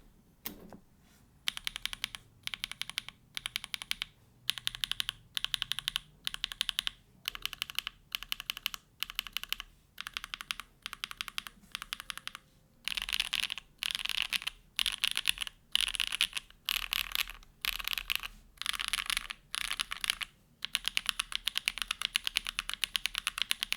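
Neo65 mechanical keyboard (polycarbonate plate, O-ring mount, plate and case foam) with hand-lubed SWK Jieum V2 switches and GMK keycaps, typed on in short runs of fast keystrokes with brief pauses between, and a longer unbroken run near the end.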